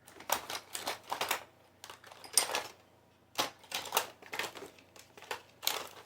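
Rummaging through a container of makeup: compacts and cases clacking and rustling against each other in irregular bursts of clicks.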